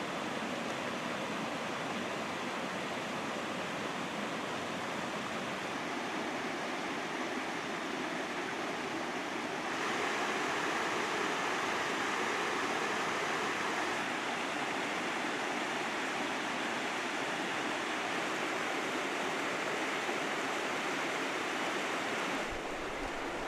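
Rushing water of a mountain trout stream with waterfalls: a steady, even rush that gets a little louder about ten seconds in and eases again near the end.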